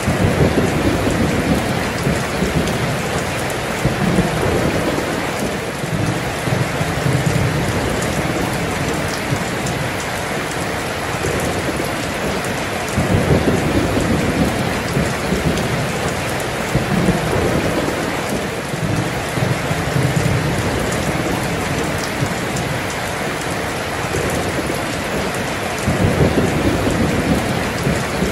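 Heavy rain pouring steadily, with low rolling thunder that swells and fades every few seconds, loudest about halfway through and near the end.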